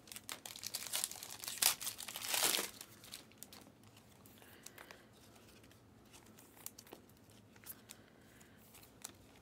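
Plastic wrapper of a trading card pack crinkling and tearing, loudest about two seconds in. After that, only faint clicks and flicks of cards being handled.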